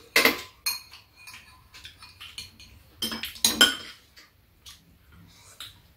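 Metal spoons clinking and scraping against ceramic bowls as two people eat fried rice: a series of short knocks and scrapes, loudest just after the start and again around three to four seconds in.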